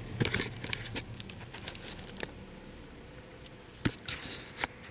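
Scattered clicks and brief rustling, as of a phone or camera being handled close to the microphone, busiest in the first second and again around four seconds in.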